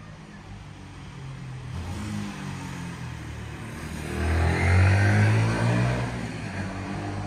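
Street traffic: an engine runs steadily, then a motor vehicle passes close by, its engine loudest about five seconds in before fading.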